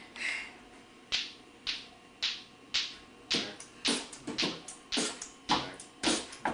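A hip-hop style drum beat starts about a second in, with sharp hits at about two a second; deeper hits join about three seconds in and the beat goes on steadily.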